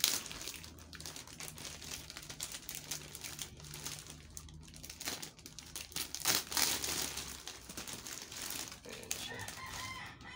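Clear plastic shrink wrap crinkling and rustling as hands peel it off a stack of plastic rack baskets, in quick irregular crackles. Near the end a short pitched animal call sounds in the background.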